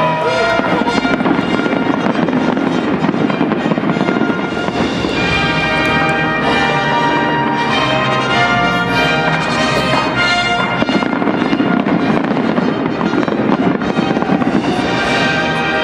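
Large fireworks display with shells bursting and crackling without a break, over orchestral-style music.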